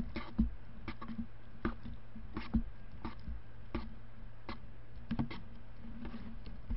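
Light, irregular clicks and taps, about one or two a second, from chopsticks and paper-lidded cup-noodle containers being handled, over a steady low hum.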